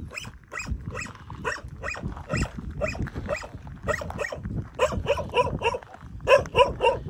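A dog barking in a rapid series of short barks, about three a second, getting louder near the end.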